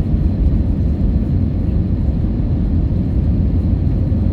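Airliner cabin noise: the steady low rumble of the jet engines and rushing air, heard from inside the passenger cabin.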